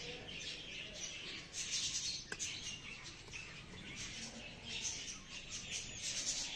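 Small birds chirping continuously, with a single sharp tap a little over two seconds in.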